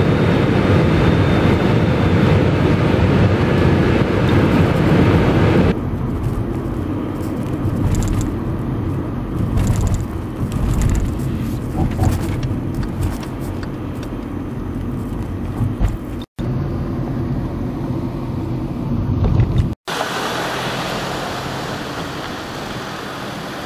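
Steady, loud jet-engine cabin noise of an Airbus A319 in flight, heard from a window seat by the wing. About six seconds in it changes abruptly to the lower rumble of a car driving, heard from inside the car. After two brief dropouts near the end, it becomes outdoor street ambience.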